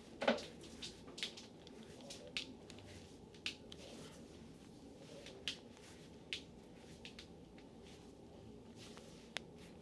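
Faint, irregular squishy clicks and slaps of a massage therapist's hands working over skin, most frequent in the first few seconds and sparser later.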